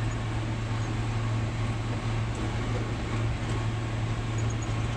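Tractor and hay mower running steadily while cutting grass: a constant low engine hum under an even mechanical noise.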